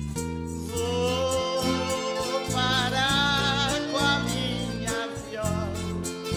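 Live acoustic Brazilian country music (música caipira): a ten-string viola caipira and acoustic guitars picked and strummed with accordion, a wavering melody line above a steady bass.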